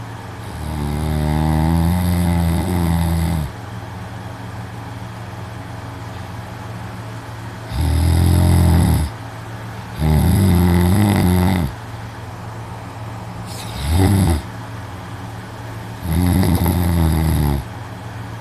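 A young man snoring loudly in deep sleep: five snores a few seconds apart, each one to three seconds long, the fourth one short.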